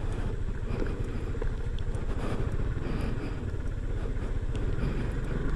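SYM Cruisym 250 scooter's single-cylinder engine running as it rides along a gravel road, with tyre noise from the loose gravel. The engine note grows louder near the end.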